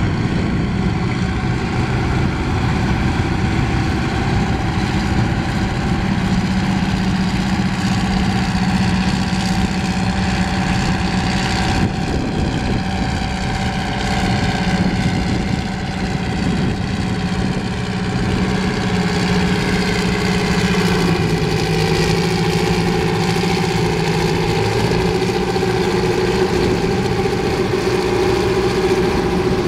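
Diesel engine of a Kinze 640 'Big Blue' four-wheel-drive tractor, a Detroit Diesel, running loud and steady. About two-thirds of the way through, the engine note shifts slightly lower.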